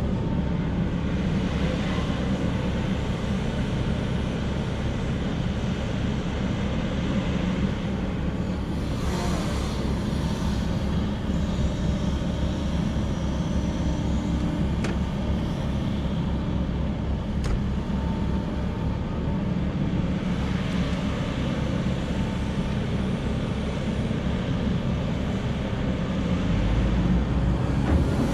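Heavy diesel machinery running steadily as an excavator loads dump trucks, the sound mostly a low rumble. A couple of sharp clicks come near the middle, and the low rumble grows heavier near the end.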